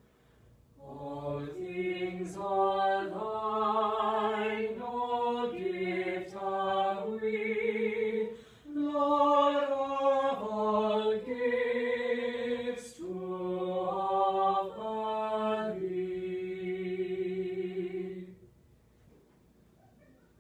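A choir singing in slow, sustained phrases. It starts about a second in, has two short breaks for breath, and stops a couple of seconds before the end.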